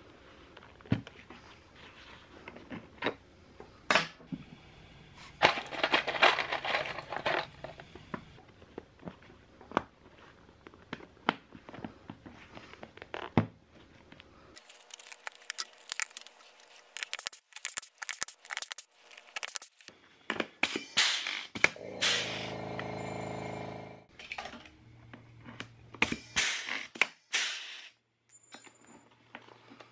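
Leather seat cover being handled: rustling, creaking and crinkling as it is pressed, stretched and smoothed, with sharp clicks as upholstery pins are pushed in and moved. About two thirds of the way in, a steady buzz lasts about two seconds.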